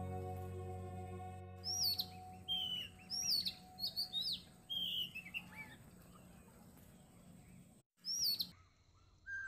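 Birds chirping: a string of short, high, falling chirps in quick succession, with another brief burst near the end. Soft background music fades out in the first second and a half.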